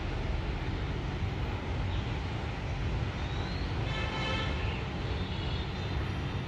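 Steady background rumble of city traffic, with a brief horn-like toot about four seconds in.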